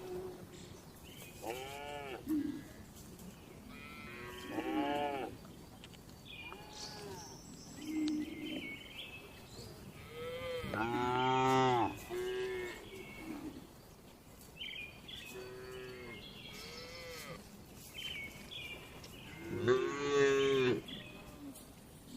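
Cattle mooing repeatedly, one call after another with short gaps, some low and some higher-pitched. The loudest, longest moo comes about halfway through, with another loud one near the end.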